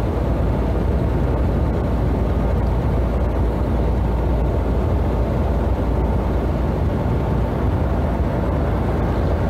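Steady low rumble of engine and road noise heard from inside a vehicle driving at highway speed.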